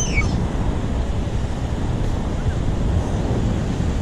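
Strong wind buffeting the microphone in a steady low rumble, with beach surf behind it. A brief high chirp sounds right at the start.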